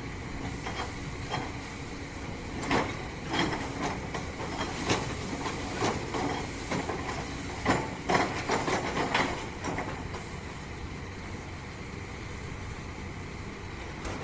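A steady low machine rumble with irregular sharp knocks and clanks through most of the first ten seconds, then a steadier stretch.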